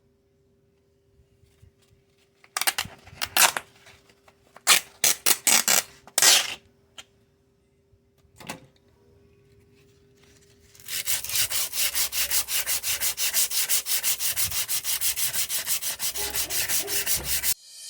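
Abrasive rubbing on a rusty metal fire poker as the rust is taken off. First come a few uneven scraping strokes; then, about eleven seconds in, a fast, even back-and-forth rhythm of roughly seven strokes a second, which stops just before the end.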